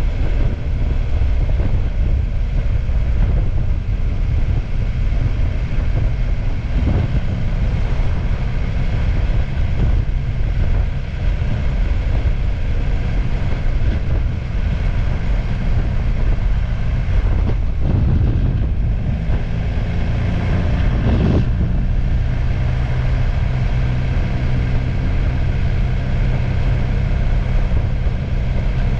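Motorcycle engine running steadily under way, with a constant rush of wind and road noise.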